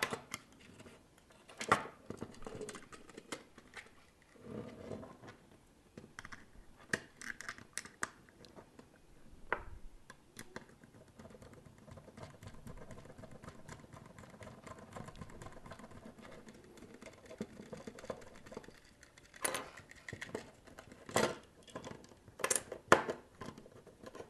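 A hand screwdriver turning small screws into a plastic robot housing, and small plastic parts being handled: scattered sharp clicks and taps with quieter scraping between them, the loudest clicks coming near the end.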